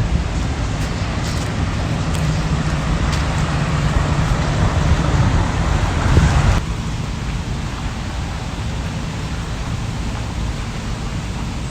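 Outdoor wind noise buffeting the microphone: a steady rumbling hiss that drops abruptly to a quieter, even hiss about six and a half seconds in.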